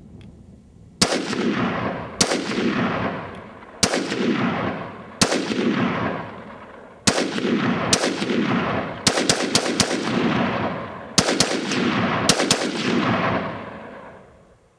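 Short-barrelled AR-15 rifle firing a new barrel in, about fifteen shots. First come single shots a second or two apart, then quicker strings of three or four. Each crack trails off in a long rolling echo.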